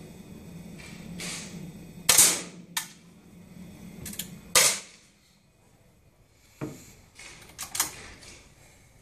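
Two target air rifle shots, about two and a half seconds apart, each a sharp crack with a short ring, at a running-target range. A low steady hum underneath stops just after the second shot, and lighter clicks and knocks follow.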